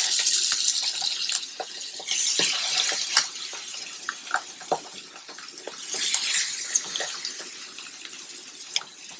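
Seasoned chicken thighs sizzling in hot olive oil in a frying pan, a steady hiss with scattered pops and crackles. The hiss swells twice, about two seconds in and about six seconds in, as more thighs are laid in skin side down.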